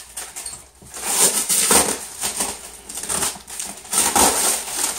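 Plastic wrapping and packing tape being torn and crinkled off a parcel, in repeated noisy rustling bursts, loudest in the first half and again near the end.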